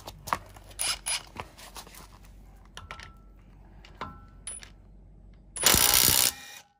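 HiKOKI WR36DC 36V cordless impact wrench hammering for under a second near the end, breaking loose a wheel lug nut torqued to 120 N·m. Before it, light metallic clicks and clinks as the socket is fitted onto the nut.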